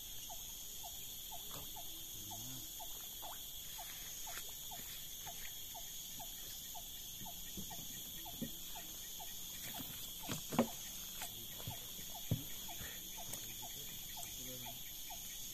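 Insects in a forest droning steadily in several high pitches, with a short chirp-like call repeating about twice a second. A few sharp knocks break in, the loudest about ten and a half seconds in.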